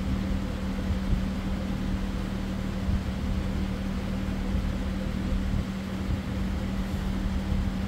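Steady machine hum: a constant low tone over a low rumble, unchanging throughout.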